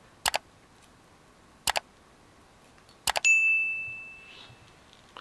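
Subscribe-button animation sound effect: three quick double mouse clicks about a second and a half apart, the last followed by a bright bell ding that rings out over about a second.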